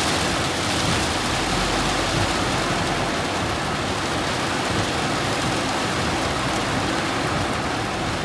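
Heavy rain falling on a car's roof and windscreen, heard from inside the car: a loud, steady hiss.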